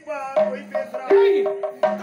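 Stage accompanist's pair of tabla-style hand drums playing a short flourish: several sharp strokes, and about a second in a loud deep stroke whose pitch bends down, over a held low steady tone.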